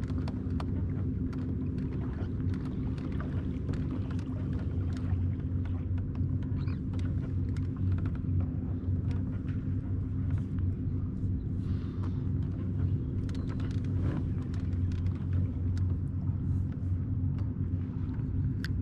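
Steady low rumble with a faint even hum, and light clicks and taps scattered over it.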